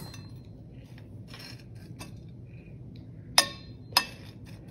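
A metal fork clinking against a plate while turning over a heap of sprouted fenugreek seeds: a few faint clicks, then two sharper clinks about half a second apart near the end.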